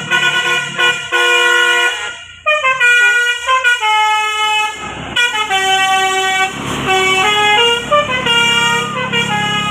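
Telolet basuri musical horn on a bus playing a melody: a run of quick stepped notes, then longer held notes from about halfway.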